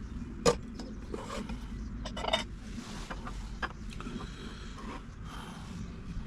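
A few sharp clicks and knocks of things being handled: the loudest about half a second in, a quick cluster a little after two seconds, another near four seconds, over a steady low rumble.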